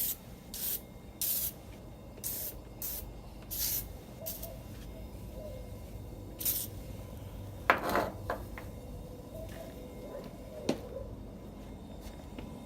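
Cleaner being sprayed onto a chainsaw in short hissing bursts, about seven quick squirts in the first four and a half seconds and one more a couple of seconds later. A knock follows about eight seconds in, and a fainter one near the end.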